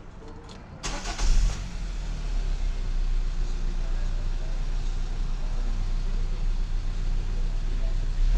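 2014 Kia Forte's 2.0 L GDI four-cylinder engine starts about a second in, then idles steadily. It runs smooth and no longer misfires now that the weak ignition coils on cylinders 1 and 3 have been replaced.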